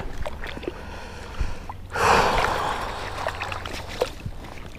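Water splashing and sloshing as a hand-held bass is dipped and swished in the water, loudest from about two seconds in and fading over a second or so. Small clicks and rustles of handling come before it.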